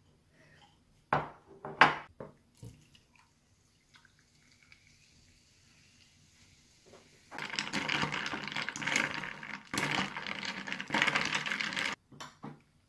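A few clinks of ice in a glass, then sparkling water poured over ice into the glass, a splashing, fizzing pour in three spells that cuts off suddenly near the end.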